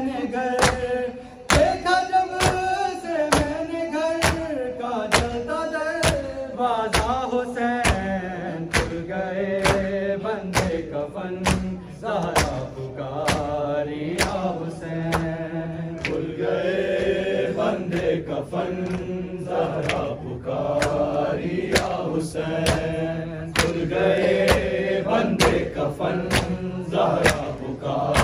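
Men's voices chanting an Urdu noha (mourning lament) together, kept in time by a steady, even beat of bare-handed chest-beating (matam).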